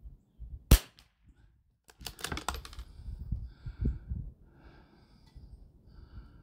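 A single shot from an Anschutz 1761 .22 LR rimfire rifle, a sharp crack about a second in. About a second later comes a quick run of metallic clicks as the bolt is worked to eject the case.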